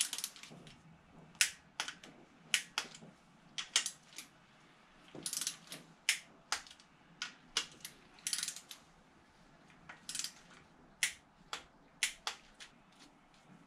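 Socket ratchet wrench clicking as the oil pump bolts are tightened: irregular sharp single clicks with a couple of short quick runs of clicks.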